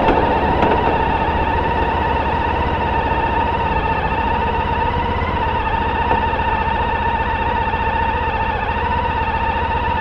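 Honda ST1300 V4 sport-touring motorcycle under way: a steady high whine over low engine rumble and wind noise, the whine rising slightly about halfway through.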